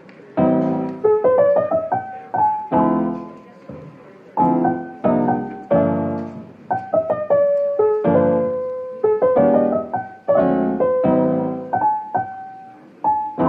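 Background piano music: chords and single melody notes struck and left to fade, in an easy, unhurried rhythm.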